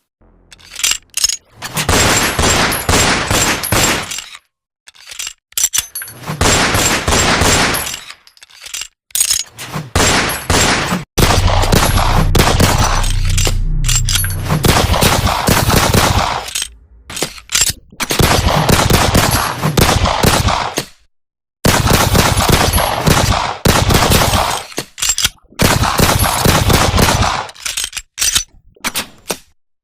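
Gunfire sound effects: a string of rapid-fire shooting bursts, each about one to four seconds long, separated by short silences.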